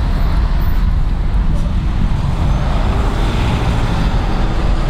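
Street traffic: cars driving past with a steady engine and tyre rumble, one vehicle's noise swelling as it passes about three seconds in.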